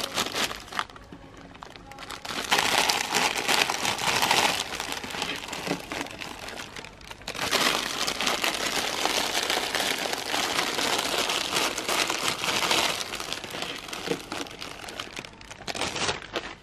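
Crinkling and rustling of a plastic biscuit packet as it is handled and shaken to tip the biscuits out. The rustling comes in two long loud spells with quieter handling in between.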